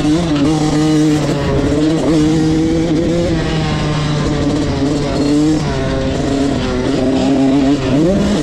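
Motocross bike engine heard from on the bike as it rides a dirt track, revs rising and falling with the throttle, with a quick rev-up near the end.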